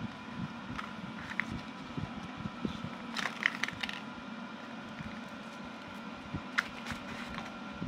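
Plastic snack packaging crinkling and clicking as it is handled by hand, in a short crackly cluster about three seconds in and a few single clicks elsewhere, over a steady fan hum.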